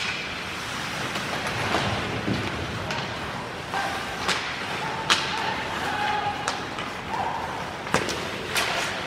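Ice hockey play: skates scraping on the ice and a few sharp cracks of sticks and puck, with players' shouts in the middle of the stretch.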